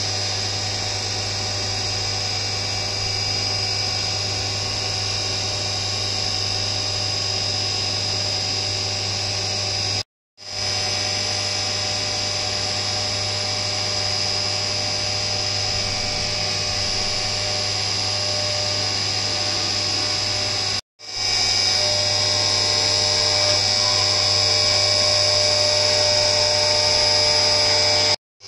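CNC milling machine cutting an aluminium billet under flood coolant: a steady high-pitched spindle tone over a low hum. The sound breaks off briefly twice, about 10 and 21 seconds in, and the last stretch is a little louder.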